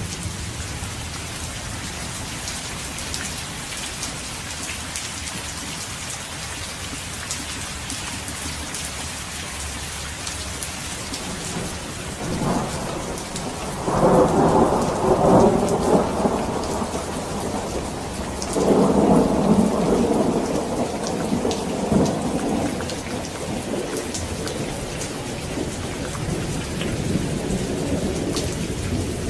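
Steady rain falling during a thunderstorm. Two long rolls of thunder come in about halfway through, one after the other, and are the loudest sounds.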